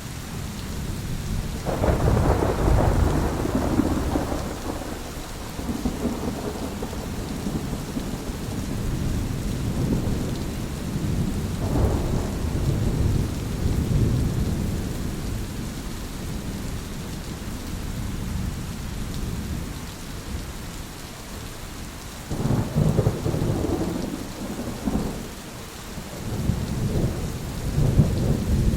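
Thunderstorm: steady rain with thunder rumbling several times, a long roll from about two seconds in, another around twelve seconds, and sharper cracks and rumbles near the end.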